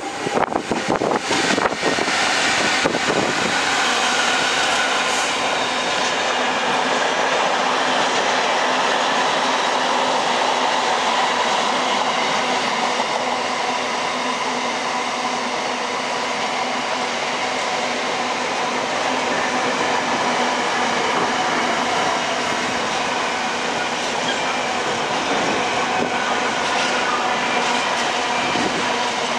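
A train passing close by: a steady, loud rush of wheels on rail, with rapid clattering in the first few seconds as it arrives.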